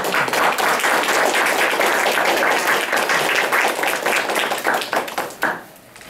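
Audience applauding: many hands clapping together, starting suddenly and dying away after about five seconds, with one last clap near the end.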